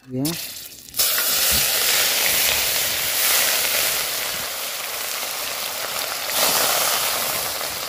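Chopped onion, tomato and coriander hitting hot oil in an iron kadhai: a loud frying sizzle that bursts in about a second in and carries on steadily, swelling again about six seconds in as another spoonful goes in.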